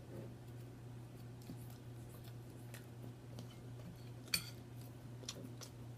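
Quiet eating sounds: a utensil clicking softly against a dish, with one sharper clink a little past four seconds in, over a steady low hum.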